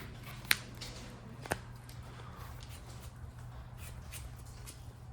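Sharp clicks and light taps of sleeved trading cards being handled and set down, the two loudest about half a second and a second and a half in, over a steady low hum.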